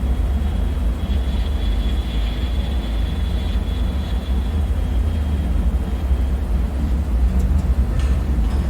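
Deep, steady low rumble of a dark bunker ambience drone. A faint thin high whine rides over it for a few seconds, and a few faint ticks come near the end.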